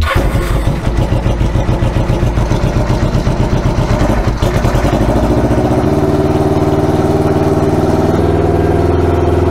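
1989 Kawasaki Ninja 500 (EX500) parallel-twin engine running loud after sitting unused most of a season, lumpy and pulsing at first. About six seconds in it is revved up and held at a higher steady speed until near the end.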